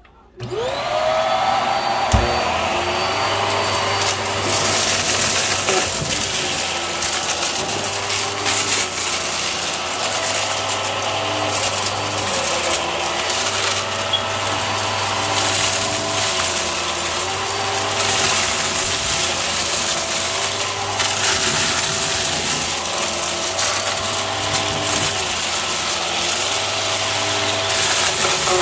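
Hart cordless stick vacuum switching on and spinning up, then running steadily while it sucks up confetti, sequins and popped balloon pieces from carpet, with crackling and rattling of debris through the nozzle. The motor's pitch dips and recovers about every two seconds, and there is one sharp knock about two seconds in.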